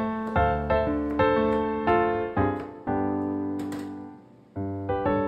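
Solo piano music: a light, cheerful tune of notes and chords struck one after another, with a brief pause a little past four seconds in before it carries on.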